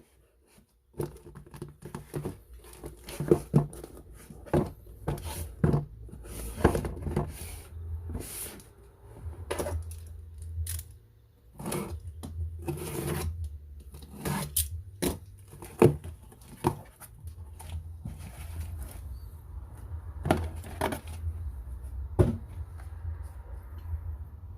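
An electric soldering iron's packaging being handled and torn open: rustling, tearing and scraping, with irregular sharp clicks and knocks.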